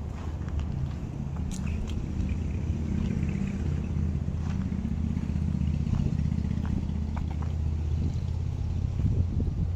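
A motor engine running steadily with a low hum that swells slightly and then eases off, with a few faint ticks over it.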